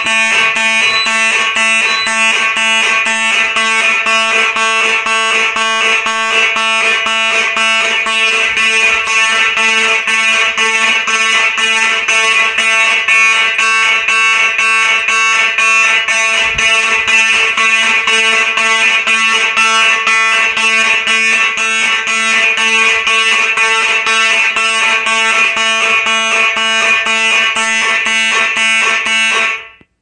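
Electromechanical fire alarm horns sounding in march-time code, about two blasts a second, really loud, signalling an activated smoke detector. They cut off suddenly near the end.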